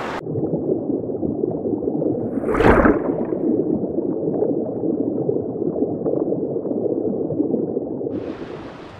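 Flowing river water heard from a camera held underwater: a muffled, churning low rush, with a brief gurgling splash about two and a half seconds in. A little after eight seconds the sound opens out into the open-air rush of the stream.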